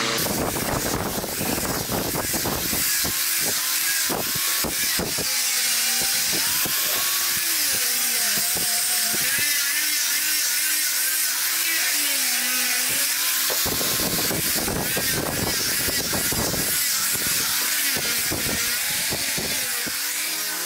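Handheld angle grinder with a sanding disc sanding a wooden stair rail. The hiss of the disc on the wood runs throughout, and the motor's pitch dips and recovers as the disc is pressed into the wood and eased off.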